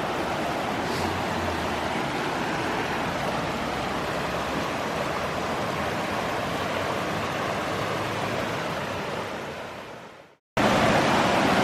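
Steady rush of a mountain creek's flowing water. It fades out near the end, breaks off into a moment of silence, and then cuts back in louder.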